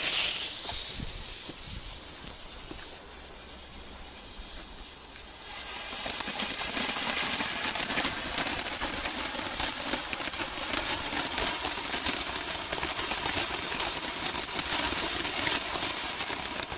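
Gold glitter fireworks fountain burning: a sharp hiss as it lights, then about five seconds in a dense, steady spray of hissing and fine crackling that stops shortly before the end.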